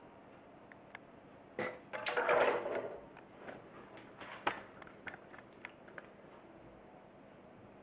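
A wire-mesh fryer basket holding small metal parts being lifted out of a parts washer's cleaning liquid: a short burst of sloshing and running liquid with the basket rattling about two seconds in, then scattered drips and light clicks.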